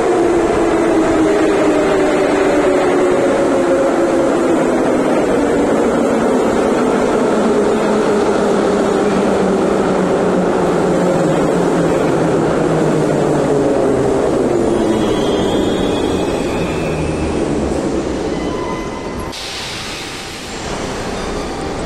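Moscow Metro 81-717/714 'numbered' train pulling in along the platform: the traction motors' whine falls steadily in pitch as the train brakes, loud for about fifteen seconds and then dying away as it stops. Near the end a short hiss of air as the doors open.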